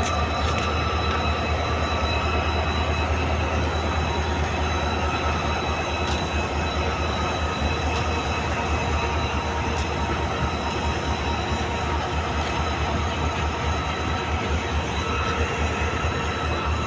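Korean-built diesel locomotive idling: a steady low engine hum with a constant high-pitched whine over it.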